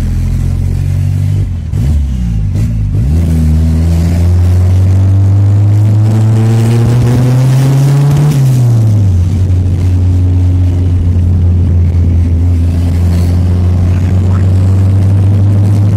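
Turbocharged car engine heard from inside the cabin: the revs drop and pick up again in the first few seconds, then climb steadily for about five seconds under acceleration, fall sharply near the middle, and hold steady through the rest.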